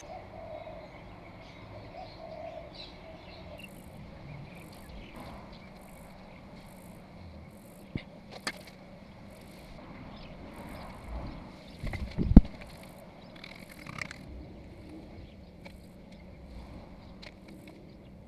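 An insect chirping in short, high, evenly repeated pulses about twice a second. There are a few sharp clicks, and a single loud knock about two-thirds of the way through.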